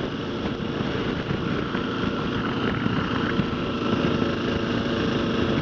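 Kawasaki KLR650's single-cylinder four-stroke engine running at a steady cruise, mixed with the rush of wind noise.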